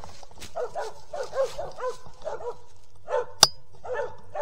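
Mountain Cur squirrel dogs barking at a tree, a quick run of short chop barks that slows toward the end. There is a single sharp click about three and a half seconds in.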